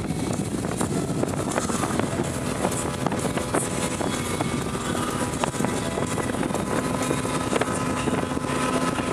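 Mercury outboard motor running steadily at speed, with a constant rush of wind and water.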